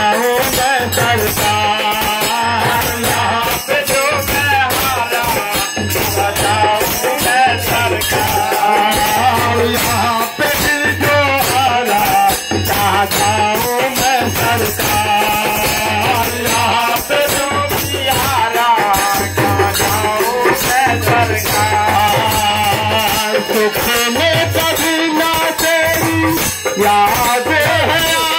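Instrumental bhajan accompaniment: a dholak drum keeping a steady beat of low strokes under a continuous rattling jingle of hand percussion, with a harmonium carrying the melody.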